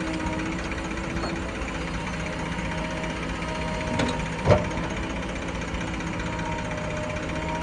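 Heavy diesel engine running steadily, with one sharp clank about four and a half seconds in.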